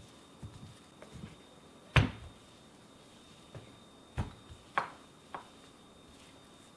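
Rolling pin knocking and pressing on a cutting board as slices of raw beef tenderloin are flattened thin: several scattered sharp knocks, the loudest about two seconds in and a cluster of three a little after four seconds.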